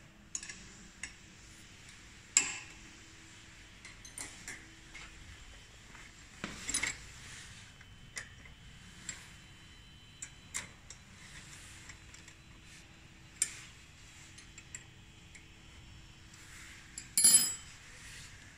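Hex key clinking and scraping against a motorcycle platform footpeg and its mount while the peg is bolted on: scattered sharp metal clicks a few seconds apart, with a louder clatter near the end.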